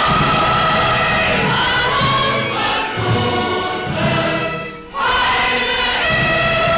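A choir of many voices singing in sustained held notes, with a short break about five seconds in before the singing goes on.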